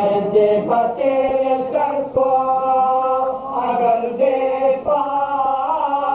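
A small group of men chanting a Urdu marsiya together in soz-khwani style, unaccompanied. They hold long melodic notes that step to new pitches every second or so.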